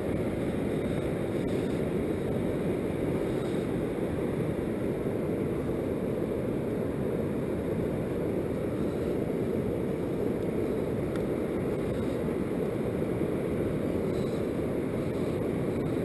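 Steady low rushing wind buffeting the microphone, with no distinct events.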